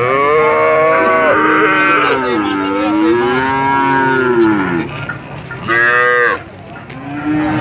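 Cattle mooing: one very long, drawn-out moo of about five seconds that dips and then rises in pitch, followed by a short moo and another starting near the end.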